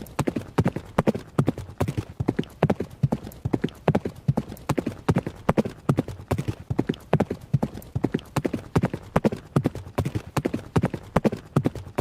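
Horse hooves running, a fast, even, unbroken rhythm of hoofbeats, several strikes a second.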